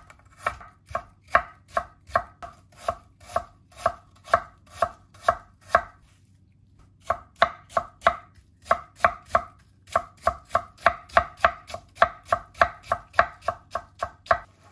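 A chef's knife julienning peeled Asian pear, each stroke knocking on an end-grain wooden cutting board. The strokes come about two a second, pause briefly near the middle, then resume at nearly three a second.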